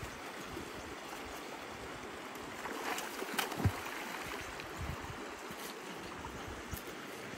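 River water running over a stony shallow bed, an even rushing hiss. A few short knocks and clicks about three to four seconds in, with fainter ones later.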